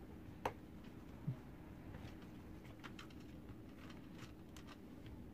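Faint clicks and taps of plastic parts and a screwdriver as screws are driven into the plastic housing of a vacuum cleaner floor nozzle. A sharp click about half a second in and a dull knock just over a second in are the loudest.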